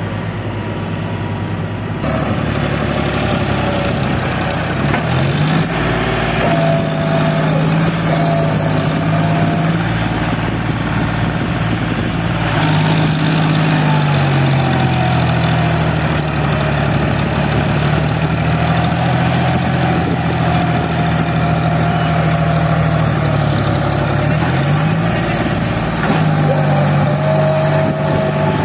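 A John Deere tractor's diesel engine working as it hauls a trolley loaded with mud through soft, dug-up ground, its pitch rising and falling several times as the throttle changes.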